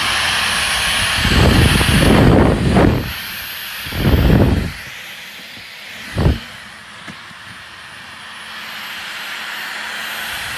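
Dyson V15 cordless stick vacuum running with a steady high hiss. Low rumbling thumps come between about one and three seconds in, again around four seconds and briefly near six seconds. It runs quieter from about five seconds on.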